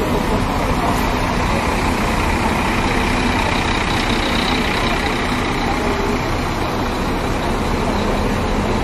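Diesel engines of Scania tour coaches running steadily as the coaches drive slowly past one after another.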